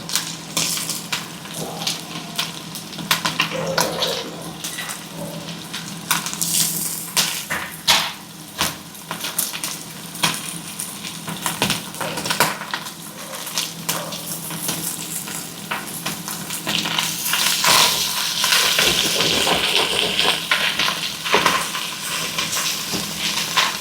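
Beef, potatoes and onion frying in a pan, a steady sizzle with a spoon scraping and clicking against the pan as the onion is stirred in. The sizzle grows louder about two-thirds of the way through.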